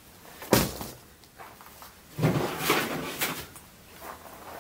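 A sharp knock about half a second in, then rummaging: old car parts being handled, clattering and rustling for a second or so.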